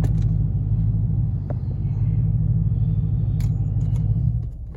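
2016 Dodge Challenger SRT Hellcat's supercharged 6.2-litre V8 idling with a steady low rumble that stops near the end.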